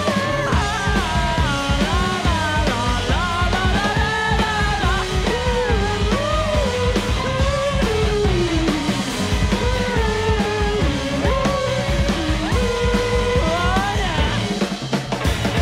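Live rock band playing: drum kit, electric guitars and bass, with a voice singing a gliding melody over them. The low end drops away briefly near the end.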